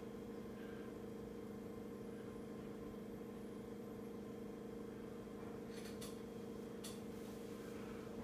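Steady low mechanical or electrical hum, with a few faint clicks about six and seven seconds in.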